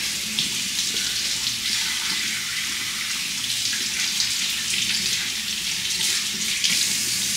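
Water running steadily from a tap, a continuous hiss.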